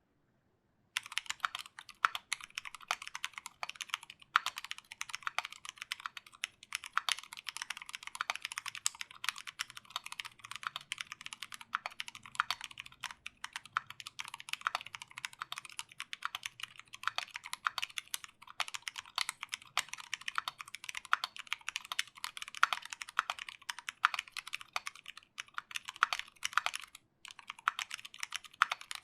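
Fast, continuous typing on a Duck Viper v2 mechanical keyboard with lubed Zealios v2 65g tactile switches, a stainless steel plate and GMK keycaps: a dense run of crisp, high keystroke clacks starting about a second in, with a brief pause near the end.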